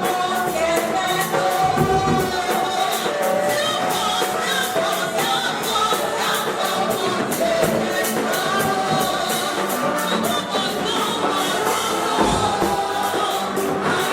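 Upbeat gospel music: a choir of voices singing together over a steady percussion beat.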